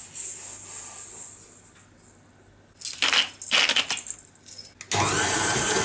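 Granulated sugar pouring with a hiss into a stainless steel mixing bowl, then a few sharp clattering knocks. About five seconds in, a KitchenAid Artisan stand mixer's motor starts and runs steadily, beating butter and sugar.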